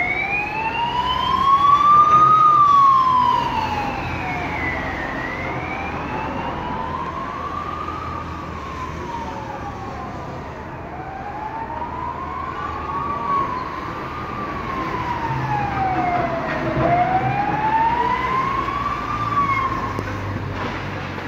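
Emergency-vehicle siren wailing, its pitch rising and falling slowly, about five seconds to each up-and-down cycle; loudest about two seconds in, with a second siren overlapping slightly out of step midway.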